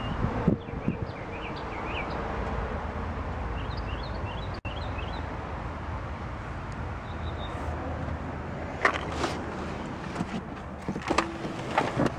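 Steady outdoor background with small birds chirping, a clunk from the rear door near the start, then clicks and knocks of the rear seat back being unlatched and folded down, with a short electric motor hum about 11 seconds in as the front seat slides forward automatically.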